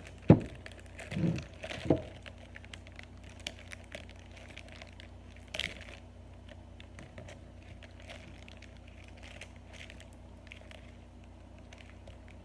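Handling noise from unpacking a tripod and its packaging: three knocks in the first two seconds, then light rustling, small clicks and a short crinkle about five and a half seconds in.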